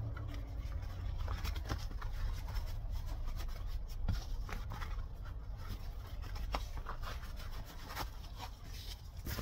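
Work gloves being pulled on and adjusted: fabric and leather rubbing, with scattered soft clicks, over a steady low rumble.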